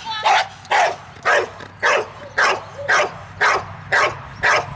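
A Malinois-type dog barking in a steady rhythm, about two sharp barks a second. This is the repeated bark a protection-sport dog gives at the blind to hold the helper, the bark and hold.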